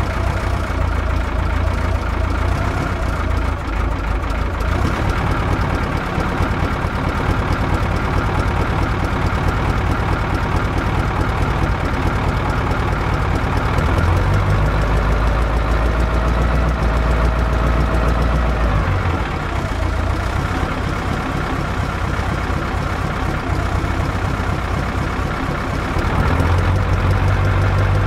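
Cummins V504 naturally aspirated V8 diesel of a 1982 Ford Cargo 1517 idling through a nearly straight-piped twin exhaust, warming up after a cold start. The idle is steady, growing slightly louder about halfway through and again near the end.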